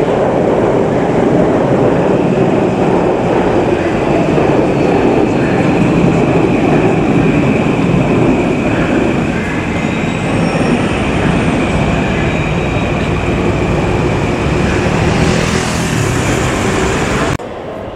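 Yamanote Line electric commuter train running over a steel girder viaduct: a loud, steady rumble of wheels on the bridge with a high steady whine above it. The sound cuts off suddenly near the end.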